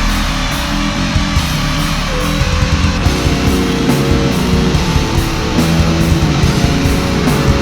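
Heavy metal song with distorted electric guitars tuned low to drop B over a steady pounding beat. Higher guitar notes come in about two to three seconds in.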